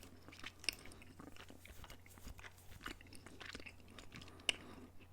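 Close-miked ASMR mouth sounds: soft chewing with small wet clicks, and two sharper clicks, one near the start and one about four and a half seconds in.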